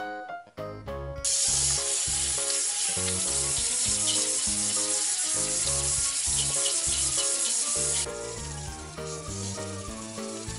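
Kitchen tap running a stream of water into a stainless steel sink as fish are rinsed under it, starting about a second in and turning quieter near the end. Background music with a steady beat plays throughout.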